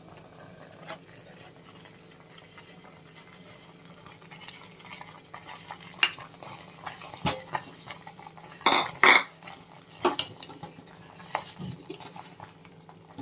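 Ladle knocking and scraping against a cooking pot while jaggery is added to the cooked rice and stirred in for sweet pongal. The knocks are scattered, with a louder cluster about nine seconds in, over a faint steady hum.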